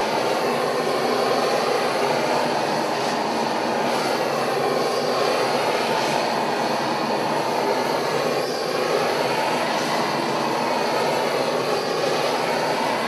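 Hand-held propane gas torch burning steadily, a constant rushing flame noise as it heats a shrink-on sleeve on a timber post.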